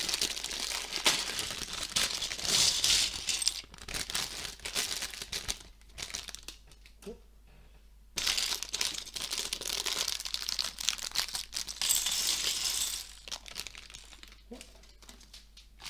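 Plastic bags of LEGO pieces crinkling and tearing as they are opened and handled, in two bouts with a quieter stretch of a couple of seconds around the middle.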